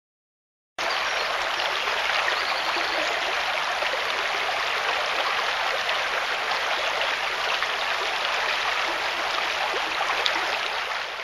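Shallow, low-water stream rippling over stones, a steady rush of running water that cuts in abruptly about a second in.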